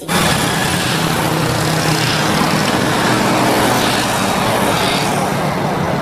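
Diesel locomotive hauling a passenger train, its engine a steady low hum under a loud, even rush of running noise; the sound cuts in suddenly at the start.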